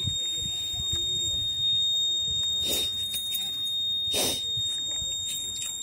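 Electronic buzzer alarm on a homemade women's-safety device circuit, sounding a steady high-pitched tone as its emergency alert to people nearby. Two short rushes of noise cut across it near the middle.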